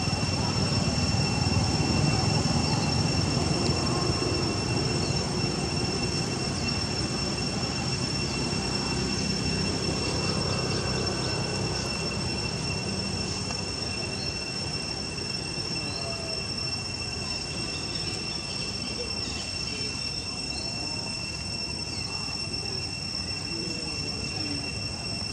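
Insects droning in one steady, high-pitched tone, over a low rumble of outdoor background noise.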